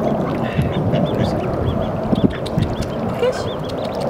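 Mallard ducklings peeping: many short, high calls in quick succession over a steady low background noise.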